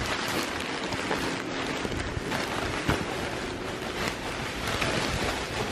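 Steady rushing handling noise from the camera's microphone rubbing against clothing while the camera is carried, with a faint knock about three seconds in.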